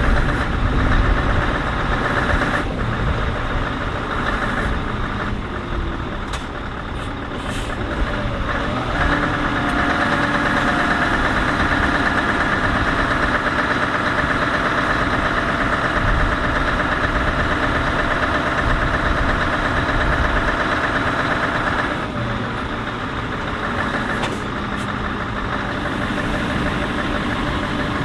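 Scania R580's V8 diesel engine idling with a steady drone. A steady higher whine joins about nine seconds in and stops abruptly some thirteen seconds later.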